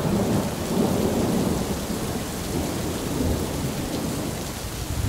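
Tropical storm wind and rain: a steady rushing noise that swells and eases a little.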